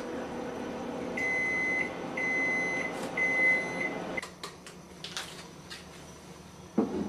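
Microwave oven running with a steady hum, sounding three long beeps and then shutting off about four seconds in. A few clicks and a short rustle follow, and a thump near the end.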